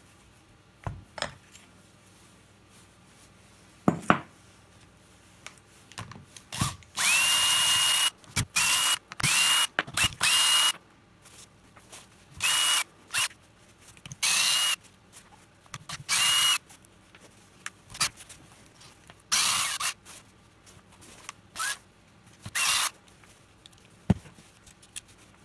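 Cordless drill-driver running in a series of short bursts as it backs out the screws of an e-bike mid-drive motor casing; each burst spins up in a quick rising whine and holds a steady pitch. A few sharp clicks of small parts or tools set down on the wooden bench.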